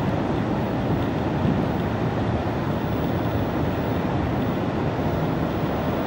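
Steady noise of ocean surf mixed with wind on the microphone, even throughout with no single wave or gust standing out.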